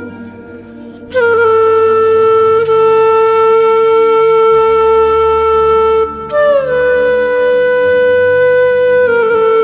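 Woodwind instrument playing a slow melody of long held notes over a steady low drone, starting about a second in. There is a short downward slide at each change of note.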